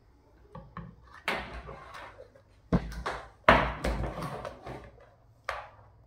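A Dell plastic keyboard being handled: a few light clicks and a rustle, then several knocks as it is turned over and set down upside down on a plastic kitchen scale, the loudest about three and a half seconds in, with a last tap near the end.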